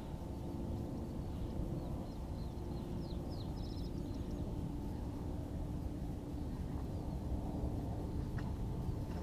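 Wind rumbling on the microphone in an open grass field, under a faint steady hum, with a bird chirping briefly a few seconds in.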